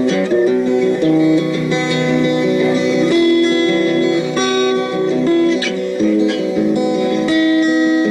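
Background music with guitar playing, one sustained note after another.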